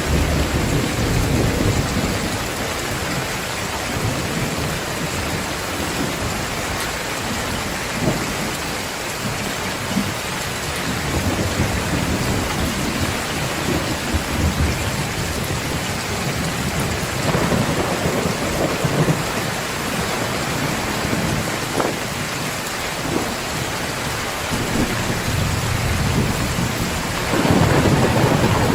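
Heavy rain pouring steadily, with low rolling thunder rumbling in waves: one at the start, a weaker one in the middle, and a louder one building near the end. A few sharp single drop hits stand out now and then.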